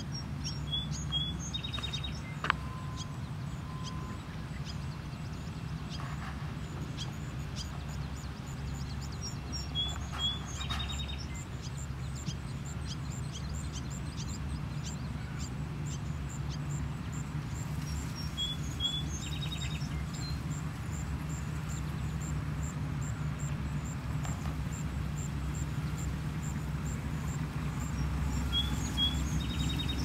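A songbird repeats the same short song four times, about nine seconds apart: two quick high chirps, then a brief buzzy trill. It sings over a steady low rumble.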